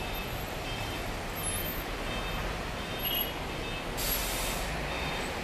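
City street traffic at a busy intersection: a steady rumble of taxis, cars and buses idling and passing, with a short high hiss about four seconds in.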